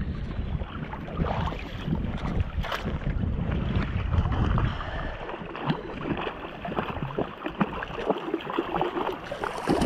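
Seawater sloshing and splashing around a wading angler, with wind rumbling on the microphone; a hooked sea bass thrashes at the surface as it is drawn toward the landing net. The wind rumble is heaviest in the first half and eases later.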